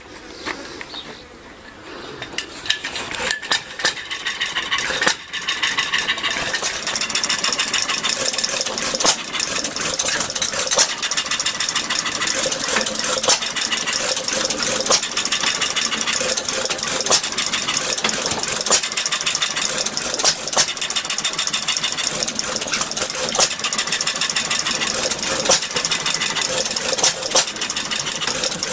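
Old Buzacott farm pump engine being started: scattered clicks from about two seconds in, then it catches and runs with a fast, steady clatter and a louder beat every second or two.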